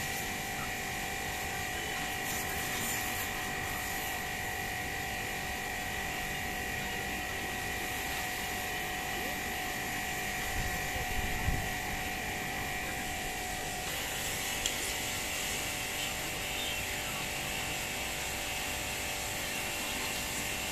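Electric pressure washer motor running with a steady hum while its water jet sprays a bicycle. The motor's tone shifts about two-thirds of the way through, and there are a few brief clatters about halfway.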